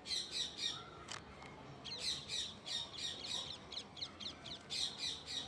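A bird calling in quick runs of short, high chirps, about three or four a second, in three bouts with short pauses between them.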